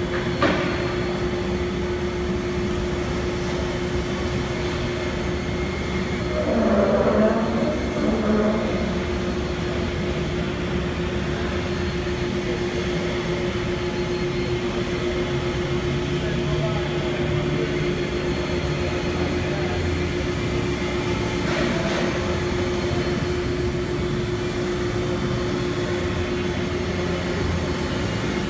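Gerber Sabre CNC router table running: a steady machine hum with one held tone, and a louder stretch about seven seconds in.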